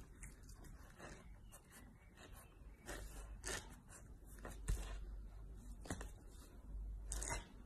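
A chow chow puppy pawing and mouthing an ice cube on a laminate floor. The ice and claws make scattered light taps and scrapes, with a few louder knocks in the second half.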